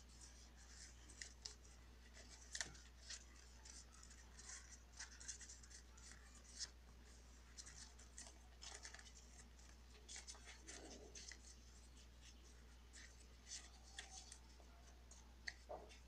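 Faint, scattered crinkles and rustles of a paper sheet being handled and folded into an origami bird, with a steady low hum underneath.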